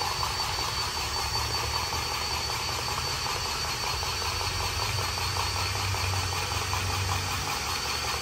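Cordless battery-powered grease gun's motor running steadily as it pumps grease out through its hose onto a semi truck's fifth-wheel plate. A low hum that is strongest in the second half.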